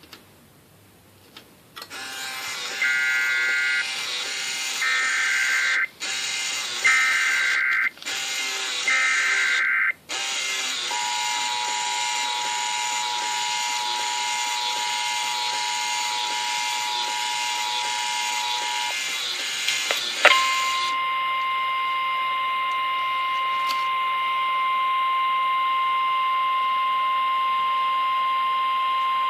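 Emergency Alert System alert tones: four short bursts of chirping SAME header data over a background hiss. These are followed by the steady two-tone attention signal for about eight seconds. Then, after a click, a single steady higher tone sounds for about ten seconds, the weather-radio warning alarm that comes before a spoken tornado warning.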